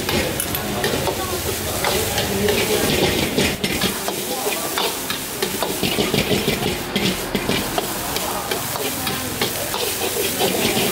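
Fried rice sizzling in a large wok while a metal ladle scrapes and knocks against the pan in quick, uneven strokes.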